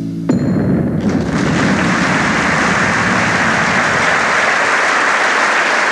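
The music's last sustained chord cuts off about a third of a second in, and an audience breaks into applause. The clapping builds over about a second and then holds steady.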